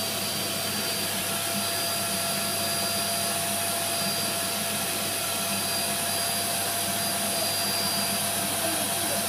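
Hoover vacuum cleaner running steadily, with a constant whine over the rush of air, its suction drawing a girl's hair into the hose to form a ponytail.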